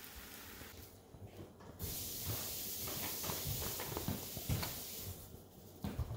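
Eggs frying in a nonstick pan on a gas stove, a steady sizzle, with a few soft knocks of handling under it.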